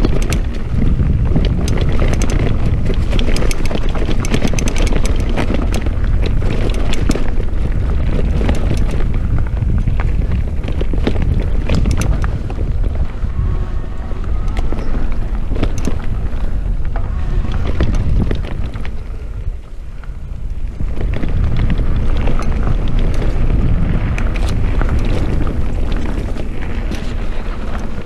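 Wind buffeting the camera microphone over a mountain bike riding a dirt forest trail, with the bike rattling and many small knocks from the rough ground. The noise eases for a moment about two-thirds of the way through, then picks up again.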